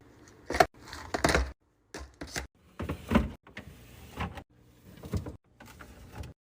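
Containers and food items being handled and set into a refrigerator: a run of irregular knocks, clatters and brief scraping slides, stopping abruptly near the end.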